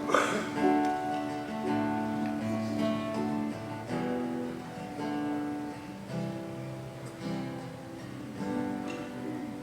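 Soft instrumental music: slow, held chords that change about every second or two.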